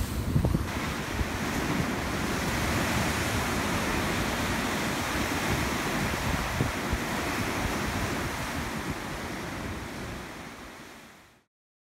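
Sea surf surging and breaking into a narrow rocky cleft, a steady rush of white water with wind on the microphone, fading away near the end.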